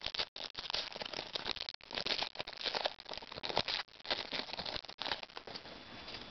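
Trading card packs and football cards being handled up close: irregular crinkling and rustling of wrapper and card stock, with a few very brief dropouts.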